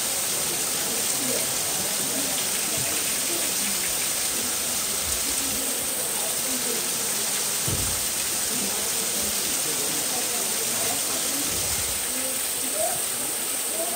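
Steady rush of running water, with a faint murmur of distant voices.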